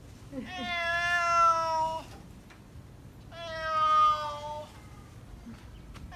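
Adult male black domestic cat meowing: two long drawn-out meows, each about a second and a half, the second beginning about three and a half seconds in. These are the calls of a talkative, friendly cat.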